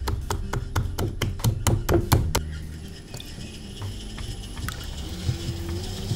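Hands patting a ball of soft clay on a potter's wheel, a quick run of about four or five pats a second that stops a little over two seconds in. Underneath, the electric wheel runs with a low steady hum while wet hands cup and press the clay, with a few soft knocks.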